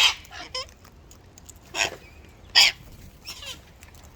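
Wild parrots squawking close by: three short, harsh screeches, one right at the start, one a little under two seconds in and a loud one just after, with fainter calls between.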